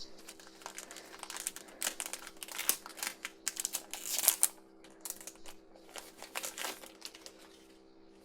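Plastic toy packaging crinkling and crackling as it is handled and torn open, in irregular crackles that stop about seven seconds in.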